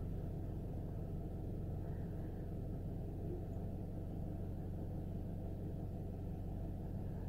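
Honeybees buzzing en masse over an opened hive: a steady, low drone.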